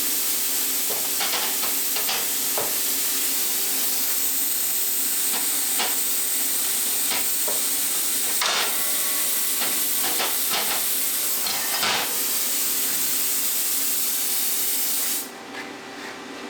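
Plasma cutter cutting stainless steel with a worn tip dragged on the metal: a steady hiss with irregular crackles, which the worn tip makes harder work. The cut stops abruptly about a second before the end, leaving a quieter steady hum.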